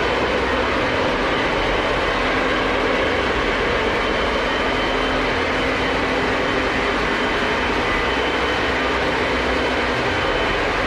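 Several Lionel O gauge model trains running at once: a steady, unbroken din of wheels rolling on three-rail track and electric motors, with a few thin steady whines in it.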